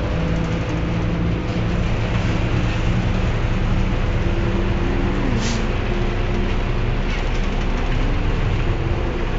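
Trolleybus interior noise: a steady rumble with the electric drive humming in several steady tones, one of them dipping in pitch about five seconds in, and a brief hiss at about five and a half seconds.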